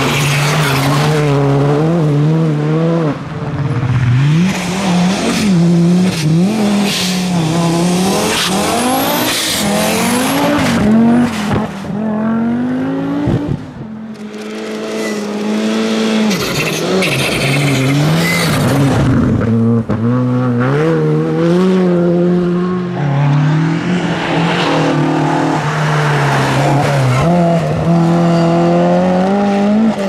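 Rally cars driven flat out on closed stages, one after another: engines revving hard, the pitch climbing and then dropping sharply again and again with each gear change and lift off the throttle. There is a brief lull about 13 seconds in.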